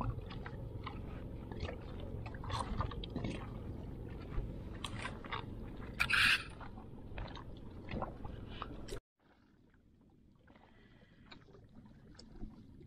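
Close handling noise: a plastic raincoat rustling and rubbing against the camera with many small scrapes and knocks, one louder scrape about six seconds in, over a steady low rumble. About nine seconds in it cuts sharply to quieter, fainter handling clicks.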